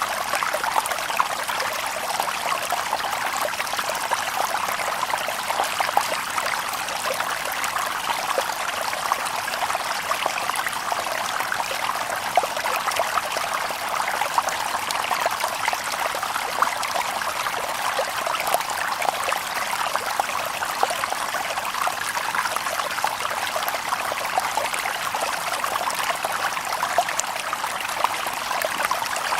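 Shallow stream babbling over stones, a steady rushing trickle dotted with small splashes and gurgles.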